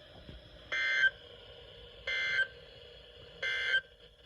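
Three short, identical screechy digital data bursts, about a second and a half apart: the Emergency Alert System end-of-message code sent over a NOAA Weather Radio broadcast. They mark the end of an alert message.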